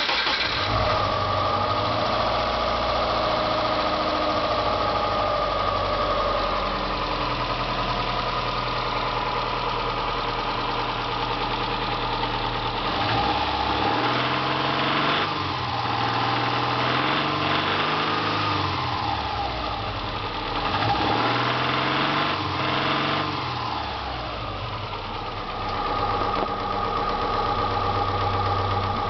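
Subaru Impreza 2.5RS 2.5-litre flat-four engine catching at the start and idling with a rattle. In the middle it is revved up and down several times, then it settles back to idle.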